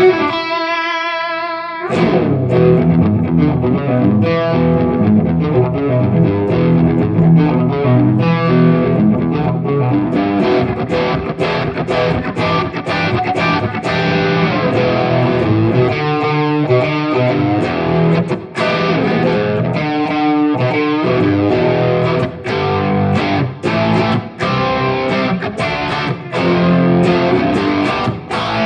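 Stratocaster-style electric guitar played through a Headrush Prime's Budda Superdrive II amp model, in an overdriven mid-gain 'brown sound' tone. A single held note wavers in pitch for about two seconds, then a busy run of chords and single-note riffs continues.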